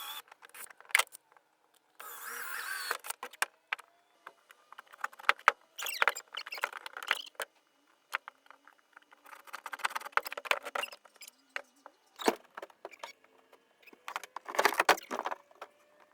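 Irregular knocks, clicks and rattles of things being handled, with several short bursts of rustling noise in between.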